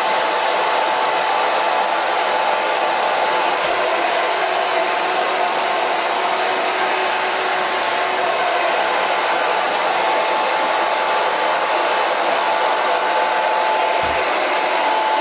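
JMW Phantom Prime MS6003C hair dryer with a brushless DC motor, running steadily: a constant rush of air with a whine held at one pitch.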